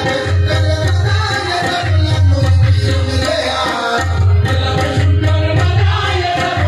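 Live qawwali music: tabla and drums beating steadily under singing, played loud.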